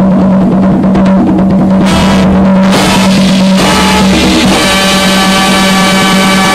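Loud dance music with drums played over a DJ's sound system. About halfway through, sustained held notes come in over the beat.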